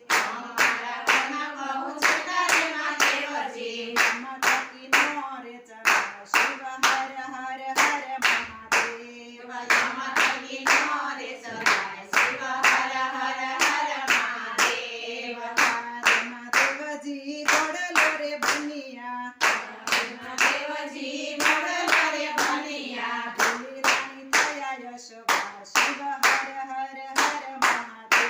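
A women's group singing a Gujarati Shiva bhajan together without instruments, clapping their hands on a steady beat.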